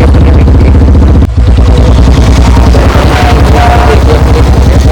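Royal Enfield Bullet Standard 350's single-cylinder engine thumping loudly through an aftermarket bend pipe exhaust while riding, with a brief break about a second in.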